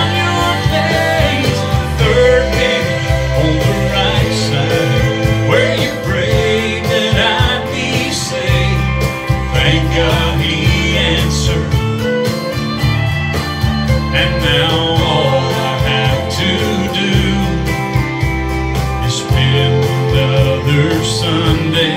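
Country song performed live: a man singing to strummed acoustic guitar over a full backing with deep, steady low notes.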